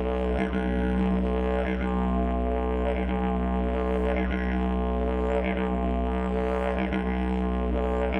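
Didgeridoo played as an unbroken low drone, with shifting upper overtones that sweep in a rhythm about once a second.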